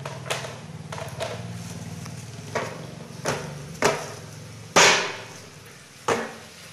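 About eight sharp knocks or thumps at uneven intervals, the loudest about five seconds in with a short ringing tail, over a low steady hum.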